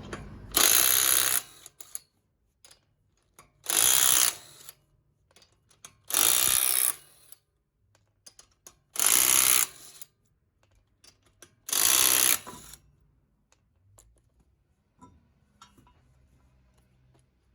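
Five bursts of about a second each from a power tool, most likely an impact wrench, with short pauses and small clicks between them, as it works on the stabilizer link's nut.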